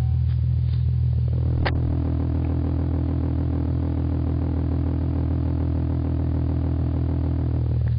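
Ford Mustang V6 idling steadily through a MAC cat-back exhaust with straight pipes to the mufflers, a deep, loud exhaust note. A sharp click comes near two seconds in, and a steady higher hum sits over the idle from about then until just before the end.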